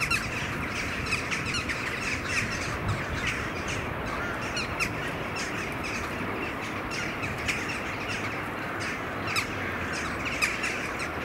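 Birds calling: many short, sharp calls repeating throughout, over a steady rushing background noise.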